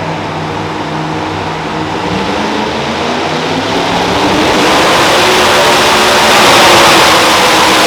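Super modified two-wheel-drive pulling truck's engine running hard at high revs, swelling much louder and harsher about four seconds in.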